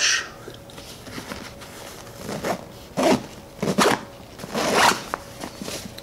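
Zipper on the front pouch of a Vertx Ready Pack 2.0 backpack being pulled open in four or five short rasping pulls.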